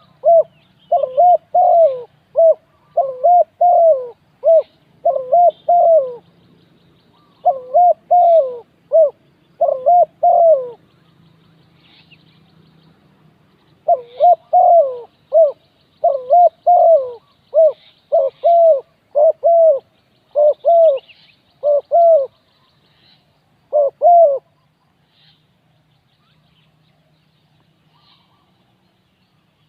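Spotted dove cooing: phrase after phrase of short coos that rise and fall in pitch. The calling pauses for a few seconds partway through and stops about 24 seconds in. Faint high chirps of small birds sound behind it.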